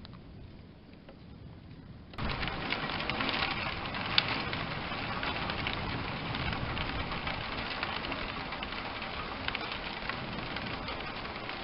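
Heavy thunderstorm rain pattering down, a dense crackling hiss that starts abruptly about two seconds in over the low rumble of thunder dying away, with one sharp louder tick a couple of seconds later.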